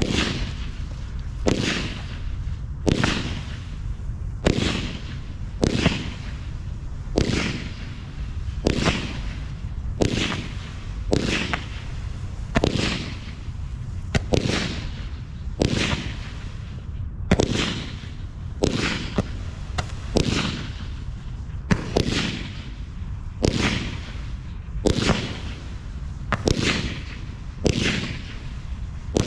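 A 25-shot, 25 mm firework cake (Evolution Fireworks Moonfall) firing single shots in steady succession, a sharp bang about every second and a half.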